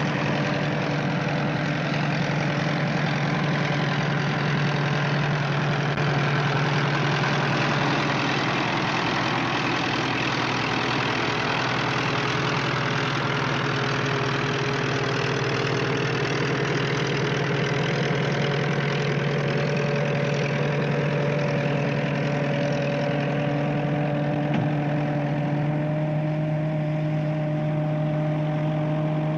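Tank engine running steadily with a deep, even drone. Its pitch shifts slightly about two-thirds of the way through.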